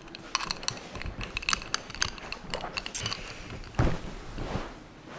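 Quick light clinks from a handheld glass jar of iced drink, ice knocking against the glass, then one dull thump about four seconds in.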